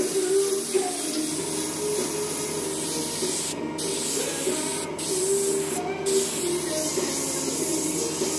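Airbrush spraying paint with a steady hiss that breaks off briefly three times near the middle.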